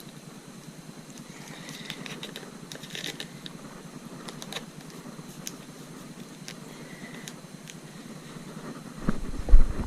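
Faint scattered clicks and light rustling as leather grip-wrap tape is pulled tight and wound around a motorcycle's plastic handlebar grip. Near the end, a loud, low, uneven rumble with thumps comes in.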